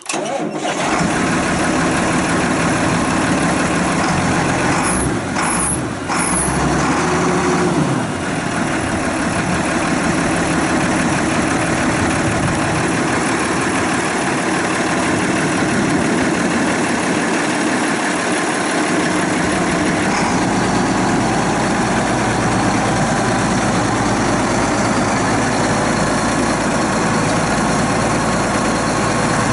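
Case IH 7130 Magnum tractor's six-cylinder turbo diesel engine starting right at the beginning and then idling steadily, with brief changes in its note about five to eight seconds in.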